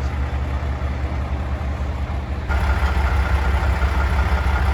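Mack plow truck's diesel engine idling steadily. About halfway through, a louder steady mechanical noise with a whine suddenly joins in.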